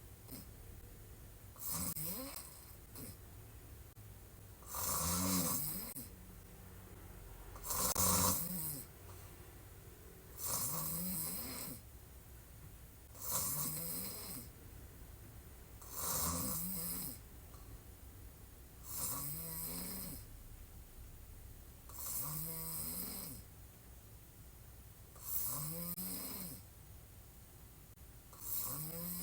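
A woman snoring hard while lying on her back, with one snore about every three seconds. Each snore lasts about a second and has a low rattle; the loudest come about five and eight seconds in.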